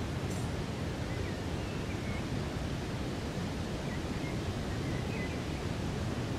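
Steady rushing wind with a low rumble from gusts on the microphone. A faint high chirp, likely a small bird, comes about a second in and again near the five-second mark.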